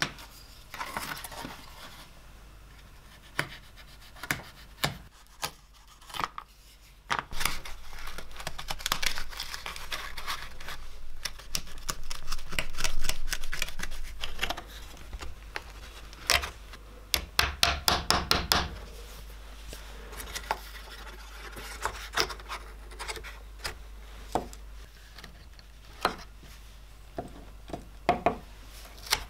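Hand tools working an old leather knife sheath: a small blade scraping and cutting through its stitching, with a quick run of sharp clicks about midway. Near the end, light taps and clicks of pliers handling tiny nails on a wooden board.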